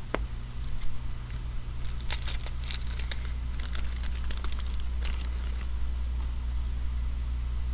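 Baseball card wax packs and cards being handled: light, scattered crinkling and rustling, busiest a couple of seconds in, over a steady low hum.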